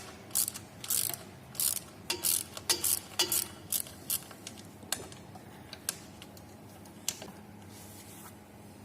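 A run of short mechanical clicks, coming about every half second for the first four seconds, then a few more spaced further apart, over a faint steady hum.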